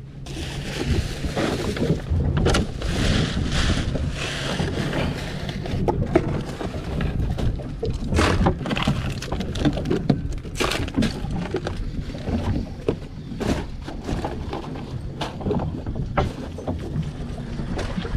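Plastic bags rustling and drink bottles and cans clinking and knocking as a boat's fish box is rummaged through, with scattered sharp knocks, over a steady low rumble of wind and boat.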